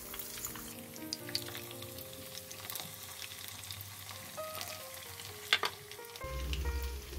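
Breaded chicken pieces deep-frying in hot oil in a frying pan: a steady sizzle with many small crackles and scattered sharp pops.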